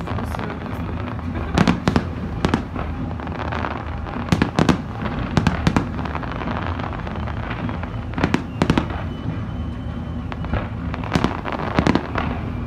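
Fireworks display: aerial shells bursting in repeated clusters of sharp bangs and cracks, several in quick succession at times, over a continuous low rumble.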